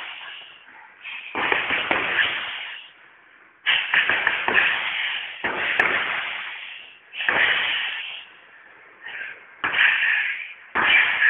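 Fast flurries of punches landing on a heavy punching bag, each burst a quick run of several strikes, with short pauses between about six bursts.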